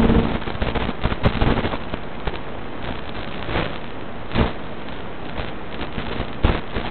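Rushing, crackling noise from the onboard FPV audio of a Multiplex Stratosurfer motor glider in flight: wind and radio static with no clear engine note, and sharper crackles about three and a half, four and a half and six and a half seconds in.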